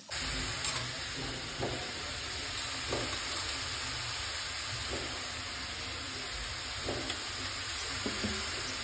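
Grated bottle gourd sizzling as it fries in ghee in a metal kadhai, with a spatula scraping through it against the pan now and then.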